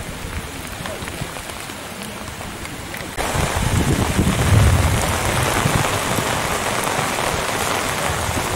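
Steady heavy rain falling. About three seconds in it turns louder and closer, with a heavy low rumble of drops striking near the microphone.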